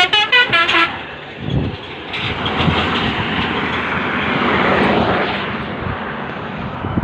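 A tour bus's musical air horn (basuri) sounding a fast pulsing tune of changing notes, about five blasts a second, which cuts off about a second in. Then the bus passes, its engine and tyre noise swelling to a peak about five seconds in and fading.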